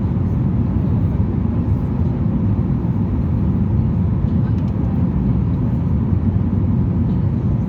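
Cabin noise inside a Boeing 737-800 airliner: a steady, even low rumble of engines and airflow with no change in pitch or level.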